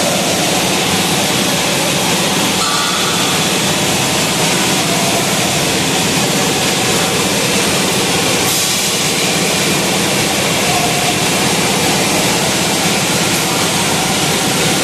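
Steady, loud rushing noise of factory machinery, even throughout with no distinct knocks or beeps.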